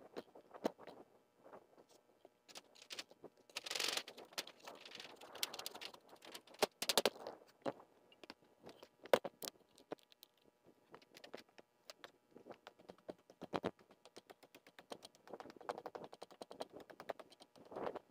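Roofing work with old barn sheet-metal roofing: irregular light knocks, clicks and taps, with a longer scraping rustle about four seconds in.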